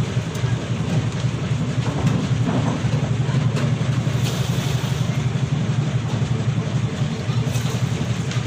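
Steady low mechanical rumble, like a running engine, holding an even level throughout.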